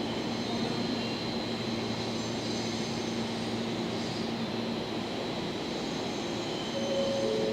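Electric commuter train, a JR West 227 series, rolling slowly toward the camera through a station: a steady rumble with a constant low hum.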